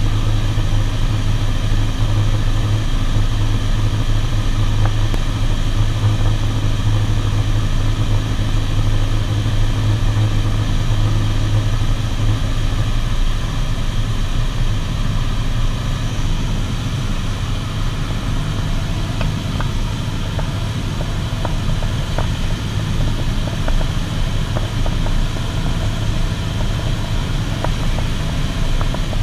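Cessna 152's four-cylinder Lycoming engine and propeller running steadily, heard from inside the cockpit with wind rush over the airframe. The strong low engine hum weakens about halfway through.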